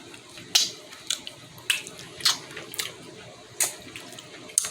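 Eating noises close to the microphone: short wet smacks and clicks of chewing and mouth movement, about one every half second to second at an uneven pace.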